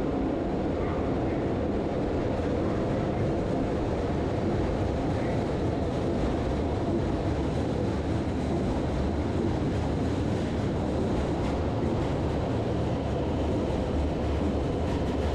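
Skyliner airport express train running, a steady rumble of wheels on rails that holds even throughout.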